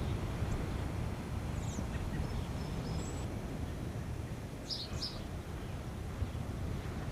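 A steady low rumble of distant ocean surf, with small birds giving a few short, high chirps; the clearest is a quick pair of notes about five seconds in.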